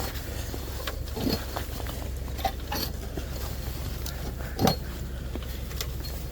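A few light knocks and clicks from handling as an alarm wire is pulled down to the panel, over a steady low hum.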